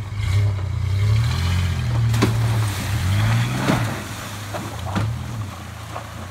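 Pickup truck engine revving hard through deep mud and water, its pitch rising and falling as the driver works the throttle, with splashes and knocks as the wheels churn through the puddle. The engine fades about four seconds in as the truck pulls away.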